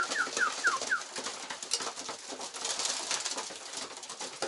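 Racing homer pigeons moving about a wooden loft, a dense patter of small clicks and scuffles as they feed. About the first second holds a quick run of six short falling chirps.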